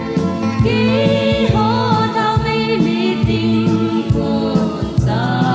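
A gospel song: several voices singing in chorus over a backing track with a steady bass and beat.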